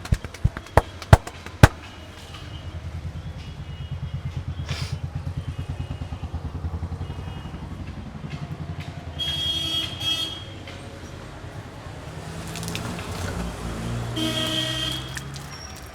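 A few loud, sharp smacks in quick succession at the start, then street traffic: a motorbike engine puttering past for several seconds and a vehicle horn honking twice, once about nine seconds in and again near the end.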